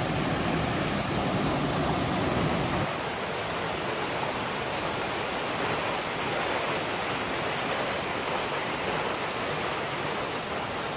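Steady rushing of a waterfall, an even hiss with no let-up. A deeper rumble under it stops about three seconds in.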